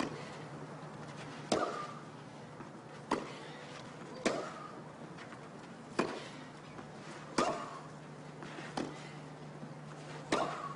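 Tennis rally: a racket strikes the ball seven times, about one shot every second and a half, as the two players trade groundstrokes, over a steady low hum.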